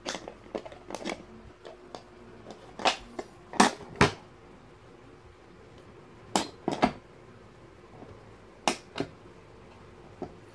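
Sharp knocks and clicks of a laptop table's board being handled and shifted, in irregular pairs, the loudest a little before halfway and again later on.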